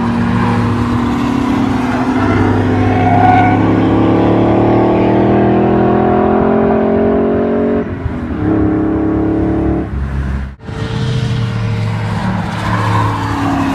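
Supercharged S62 V8 from an E39 M5, swapped into a BMW E31 8 Series, pulling hard on track. The engine note climbs steadily for about eight seconds, drops sharply at a gear change, then pulls again, with a sudden brief dip about ten and a half seconds in.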